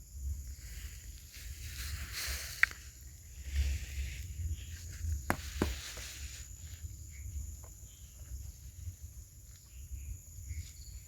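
Outdoor ambience: a steady low rumble of wind or handling on the microphone under a thin, steady high-pitched tone, broken by a few sharp clicks or knocks, one about two and a half seconds in and two more about five and a half seconds in.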